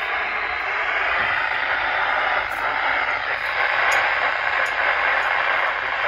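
Weather alert radio's speaker giving out a steady, loud static hiss.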